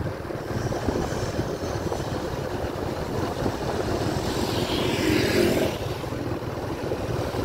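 Steady low rumble of a vehicle riding along a road. Another vehicle swells past briefly about five seconds in.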